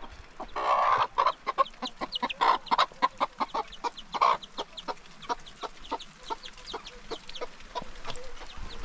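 Chicken clucking: one loud call just before a second in, then a quick run of short clucks that grows softer in the second half.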